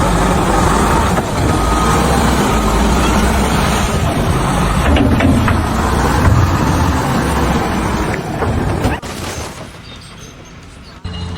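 Loud, steady heavy-engine noise, like a truck or large machine running, with a deep rumble; it cuts off suddenly about nine seconds in.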